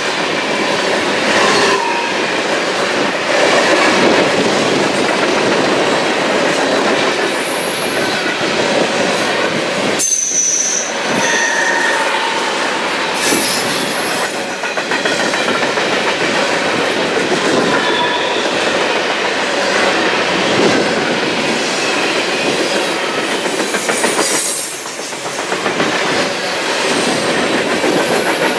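Freight cars of a long train rolling past close by: a steady rumble and wheel clatter on the rails, with high-pitched squealing from the wheels coming and going from about ten seconds in.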